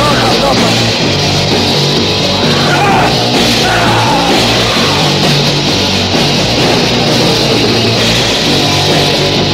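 1983 anarcho-punk / noise-punk recording: a band with electric guitar playing a loud, dense track with no breaks.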